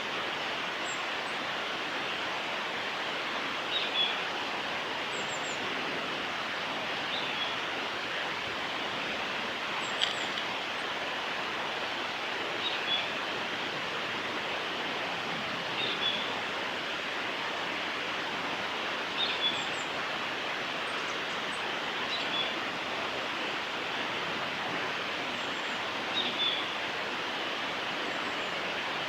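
Male blue-and-white flycatcher singing short song phrases about every three seconds, over a steady rushing background noise.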